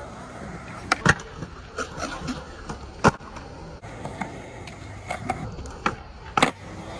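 Skateboard wheels rolling on concrete, broken by sharp cracks of the board popping and landing. The loudest cracks come about a second in, about three seconds in and near the end.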